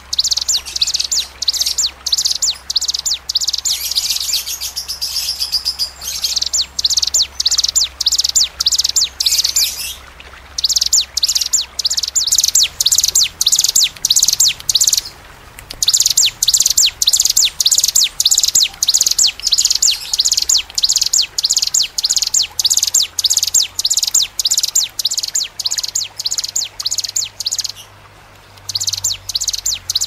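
Recorded song of small cici-type birds (ciblek, ciwah, cigun) giving 'tembakan': long runs of sharp, high-pitched chirps fired several times a second, broken three times by short pauses.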